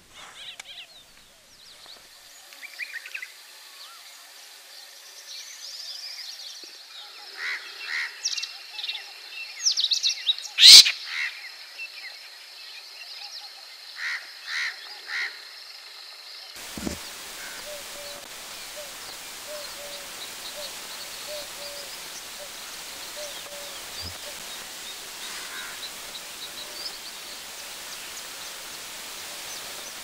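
Crested lark calling: scattered short chirps and trilled notes, with one loud sharp click about ten seconds in. About sixteen seconds in, the sound changes abruptly to a steady outdoor hiss with faint, distant bird calls.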